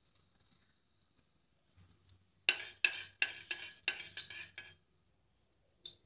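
Fenugreek seeds sizzling faintly in hot mustard oil in a wok, broken in the middle by a metal spatula stirring, with about eight quick scrapes and knocks against the pan.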